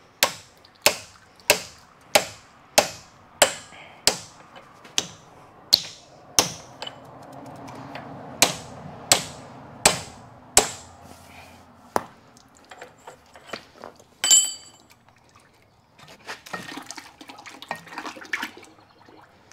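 Steel-on-steel hammer blows on a tow truck's hydraulic cylinder rod, a regular strike about every two-thirds of a second for some ten seconds. After that come a few lighter knocks, one sharp ringing clank, and a stretch of metal scraping near the end.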